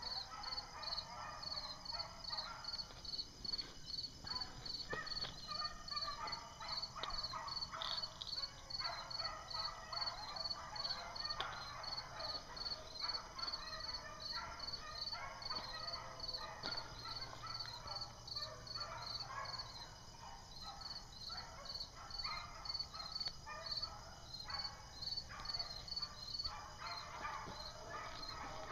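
A pack of beagles baying in the distance as they run a rabbit, many voices overlapping without a break. Over it, a steady high insect chirp repeats about twice a second.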